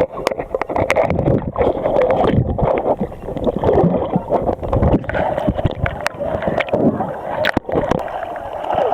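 Water sloshing and gurgling right around a waterproof camera, muffled, with many small splashes and clicks throughout.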